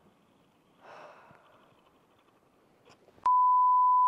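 A single steady 1 kHz censor bleep starts abruptly about three seconds in and holds at one pitch, masking an angry word from the angler after losing a fish. Before it there is only a faint breath.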